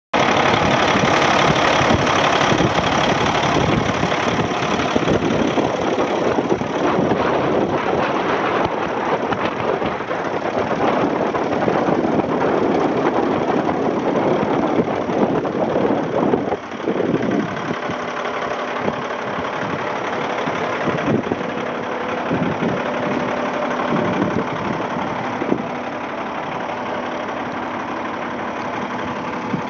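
Cummins C6TA inline-six turbo diesel in a 1995 Kenworth truck idling. It is loud and dense up close at the engine, then quieter and steadier for the second half.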